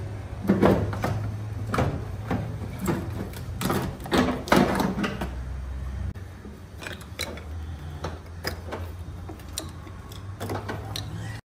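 Irregular knocks and clatter over a low steady hum. The knocks are densest in the first half and thin out after about six seconds.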